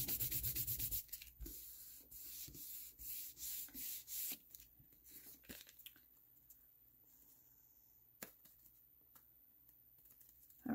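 A hand rubbing quickly back and forth over cardstock to press a freshly glued layer down, a fast even run of strokes that stops about a second in. Softer scattered rustles of the stiff card being handled follow, dying away to near quiet after about five seconds.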